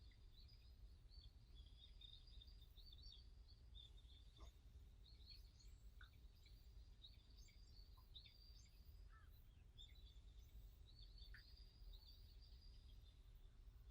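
Songbirds chirping and twittering faintly, with many short high calls overlapping throughout, over a steady low rumble.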